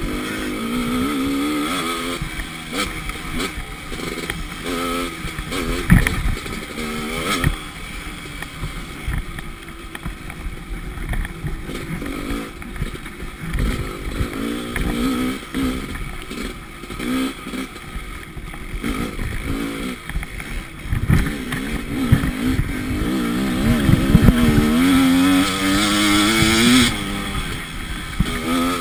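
Dirt bike engine being ridden on a rough trail, its revs rising and falling constantly with throttle and gear changes. A couple of sharp knocks come about six and seven and a half seconds in. The revs climb to their loudest and highest near the end, then drop off sharply.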